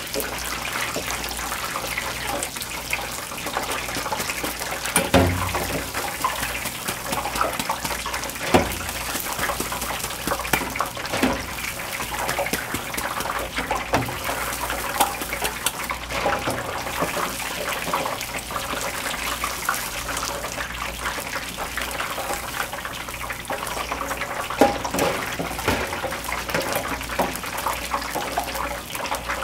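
Battered pork pieces deep-frying in hot oil, a steady bubbling sizzle, while a metal ladle and wire spider strainer stir them. A few sharp metal knocks stand out over the sizzle, the loudest about five seconds in, again a few seconds later, and once near the end.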